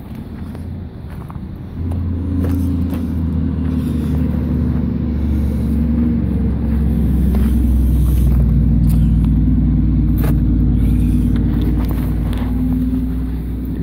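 Detroit Diesel 4-53T, a turbocharged four-cylinder two-stroke diesel, idling with a steady low rumble, growing louder about two seconds in.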